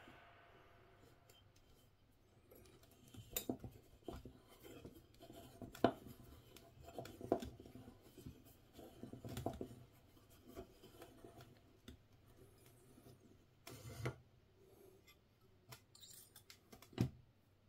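Faint, irregular clicks, taps and scraping of small handwork with metal wire and hand tools on a tabletop, as a lure's wire is bent and fitted.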